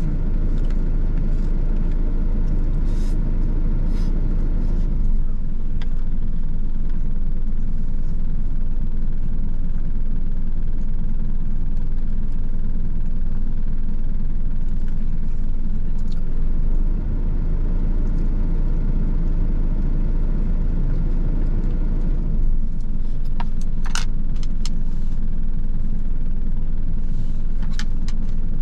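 A small truck's engine idling with a steady low rumble, heard from inside its cab. A few short clicks and clatters from a plastic food container and chopsticks, more of them near the end.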